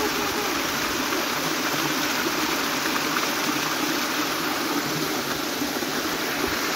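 Water pouring and churning through the sluice of a concrete irrigation channel (seguia), a steady, even rush of falling water.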